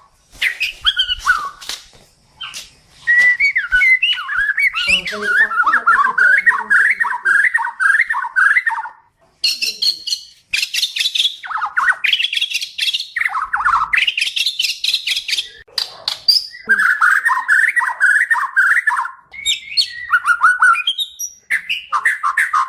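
A white-rumped shama (murai batu Kalimantan) singing: a run of loud, varied phrases of rapid warbling trills and higher whistles with sharp clicks, each phrase a few seconds long with short pauses between.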